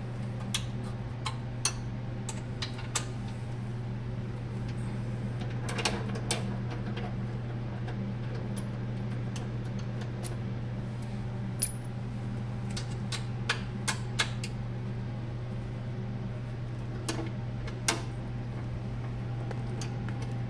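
Scattered sharp metallic clicks and clinks of hand tools and fasteners while a stopper is being unfastened on a lithotripter. The loudest knock comes about twelve seconds in. A steady low hum runs underneath.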